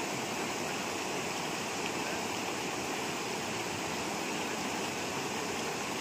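Fast-flowing stream water rushing steadily over rocks.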